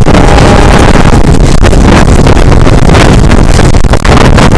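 Loud wind buffeting a camera mounted on the outside of a moving passenger train's carriage, over the low rumble of the train running at speed.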